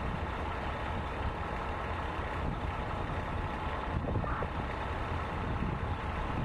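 Car engines running and idling as a line of traffic wades slowly through deep street floodwater, a steady low rumble.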